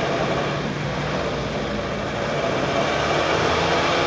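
Heavy machine's diesel engine running steadily.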